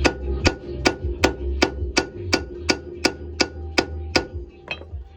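A hammer striking a steel punch to drive a wheel stud out of a Honda front hub: about a dozen even blows, roughly three a second, each with a metallic ring, stopping near the end.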